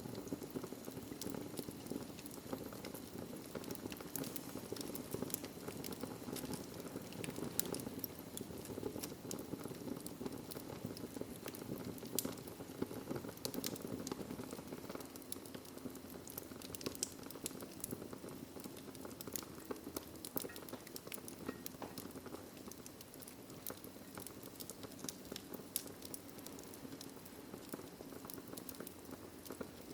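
Wood fire crackling in a fireplace: many quick sharp pops and snaps over a steady low hiss of burning.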